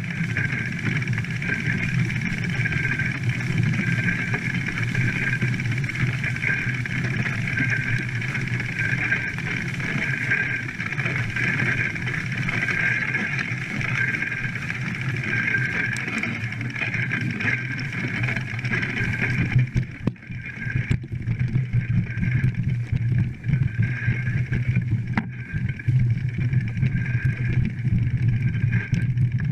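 Steady rush and splashing of shallow stream water as riders wade through it on foot, pushing mountain bikes along the stream bed.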